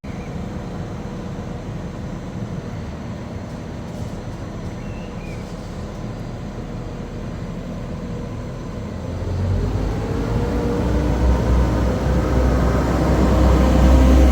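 Diesel train engine running with a low, steady rumble, which grows louder and heavier about nine seconds in.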